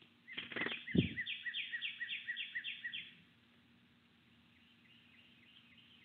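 A songbird singing a fast run of about ten repeated two-part notes, lasting about three seconds, with a single low thump about a second in. Fainter repeated notes follow near the end.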